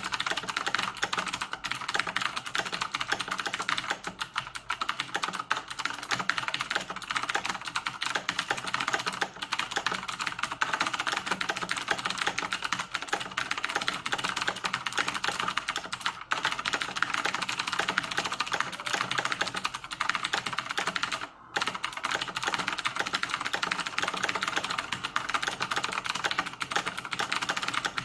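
Razer BlackWidow Ultimate 2016 mechanical keyboard being typed on very fast, at about 135 words per minute: a dense, continuous stream of key clicks, with one brief pause about 21 seconds in.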